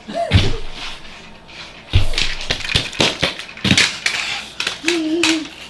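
Small diecast toy cars being picked up and handled, giving scattered clicks and knocks, several in quick succession around the middle. A brief voice sound near the end.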